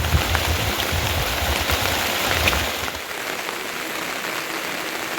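Heavy rain falling, a dense steady hiss, with low rumbling underneath for the first few seconds.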